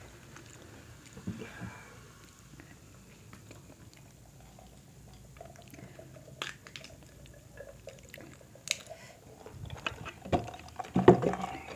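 Close-up eating sounds from a seafood boil of crab, shrimp and corn: chewing and the handling of crab and shrimp shells, with scattered short clicks. It gets louder about ten seconds in.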